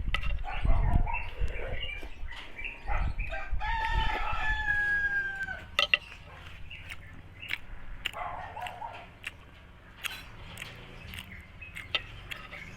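A rooster crows once, a drawn-out call about four seconds in that lasts about two seconds and cuts off abruptly, over short clicks and smacks of someone eating.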